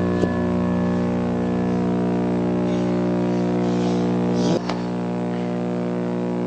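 A steady low drone made of many held tones stacked one above another, with a brief sweeping blip about a quarter second in and another about four and a half seconds in, after which the deepest part of the drone drops away.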